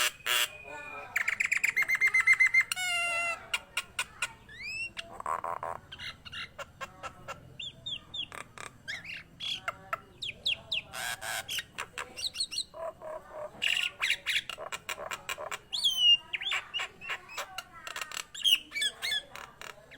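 Nias hill myna singing loudly and continuously: a fast run of repeated notes near the start, then a varied string of whistles gliding up and down, sharp clicks and harsh squawks.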